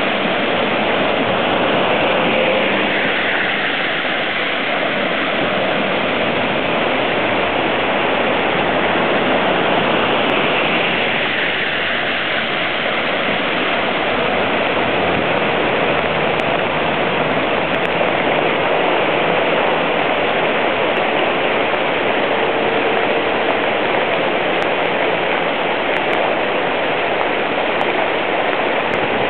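Floodwater rushing fast down a flooded road, a loud steady rush of water. Vans and a car wade through it, their wheels throwing up spray that changes the rush as they pass, a few seconds in and again around the middle.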